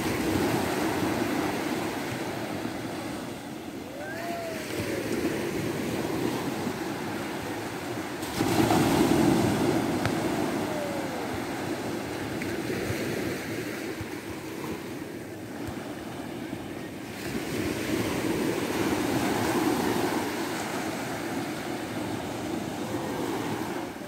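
Small waves breaking and washing up onto a sandy beach, rising and falling in swells every several seconds; the loudest wave comes in sharply about eight and a half seconds in.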